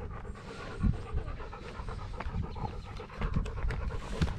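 A dog panting in quick, even breaths right against an action camera strapped to its body, with one louder bump about a second in.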